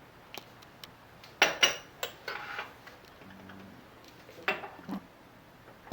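Scattered light clicks and knocks, a few sharper ones about one and a half and two seconds in and another cluster near the end.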